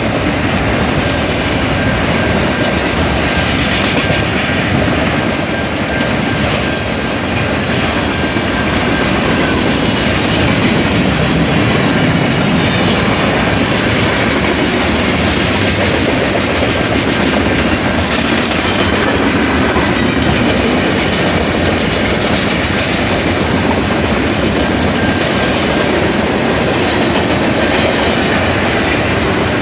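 A train rolling through a road crossing, its cars' wheels clattering steadily over the rail joints for the whole stretch.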